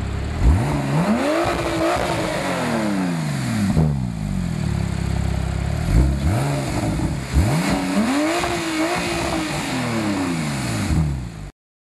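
Porsche 997.2 Turbo S twin-turbo flat-six, breathing through a Fabspeed Supersport X-pipe, sport headers and sport cats, idling and then revved three times, each rev rising and falling back to idle; the last is the longest. The sound cuts off suddenly near the end.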